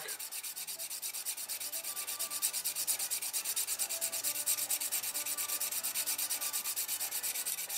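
An EZE-Lap diamond paddle hone rubbed quickly back and forth along a steel knife edge, an even dry rasping at about seven short strokes a second. It is wearing the black marker ink off the edge bevel to show where the hone is cutting.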